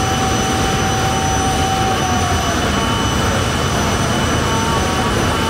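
J60 turbojet engine of a jet-powered drag truck idling, a steady rushing noise with constant high whistling tones from the turbine.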